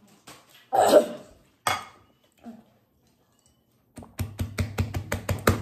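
A person coughing twice from the burn of very spicy ramen. Near the end comes a fast run of short, sharp sounds.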